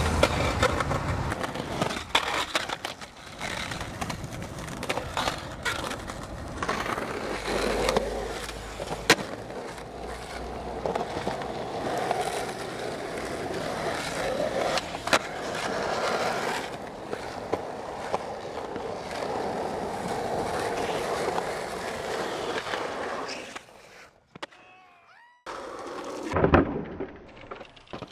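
Skateboard wheels rolling over asphalt and concrete, broken by sharp clacks of the board popping and landing tricks. Near the end there is a brief near-quiet break, then a loud hit.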